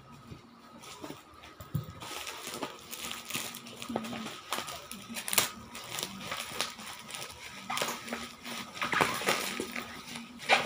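Plastic parcel wrapping crinkling and crackling as it is pulled and torn open by hand, starting about two seconds in and loudest near the end.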